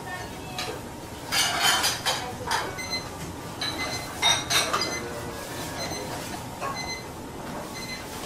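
Metal pots, utensils and dishes clattering and clinking in a restaurant kitchen, in two bursts, one about a second and a half in and one around four seconds in, with short ringing clinks between, over a steady kitchen hum.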